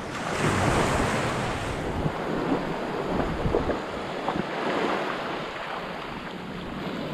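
Small waves washing onto a sandy beach, with wind on the microphone; a louder rush in the first couple of seconds.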